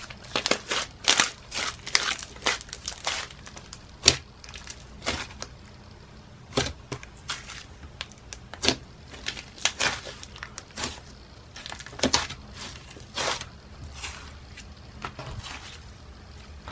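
Slime being squished and worked by hand, making irregular sharp pops and crackles.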